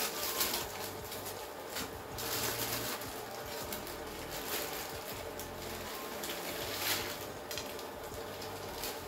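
Plastic instant-noodle packaging and seasoning sachets crinkling and rustling as they are torn open, squeezed and shaken, in repeated short rustles that are loudest just after the start, around two to three seconds in, and near seven seconds.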